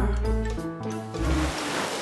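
Cartoon background music with a low bass line; a little over a second in, a rushing water-spray sound effect comes in over it.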